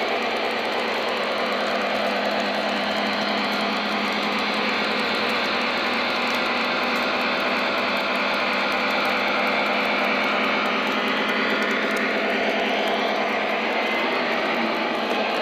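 O scale model train of an Amtrak F59PHI locomotive and passenger cars running on its track, with a steady mechanical running noise from the motors and wheels that shifts slightly in pitch near the end.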